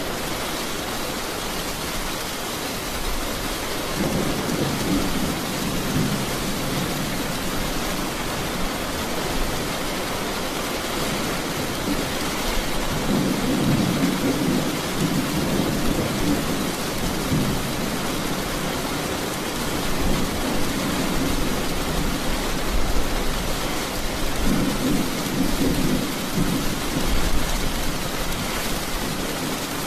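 Heavy rain falling steadily in a thunderstorm, with three low rolls of thunder: about four seconds in, midway, and near the end.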